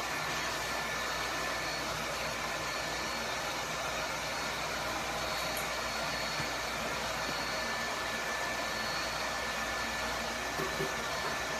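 A motor-driven blower running steadily: an even rushing noise with a faint high whine that does not change.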